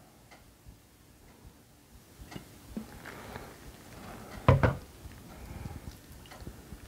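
Quiet handling sounds of a glass vinegar bottle and a metal measuring spoon over a bowl of ground pork: a few light clicks and knocks, with one brief louder sound about four and a half seconds in.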